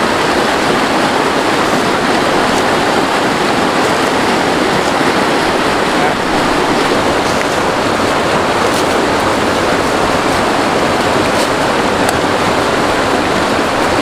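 Rocky trout stream rushing and splashing over rocks in small cascades: a steady, even wash of water.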